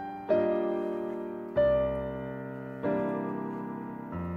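Background piano music: slow chords struck four times, about once every second and a quarter, each fading away before the next.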